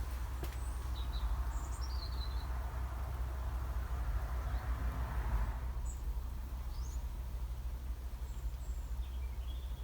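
Small birds chirping in short scattered calls over a steady low rumble, with a broader hiss that fades out about halfway through.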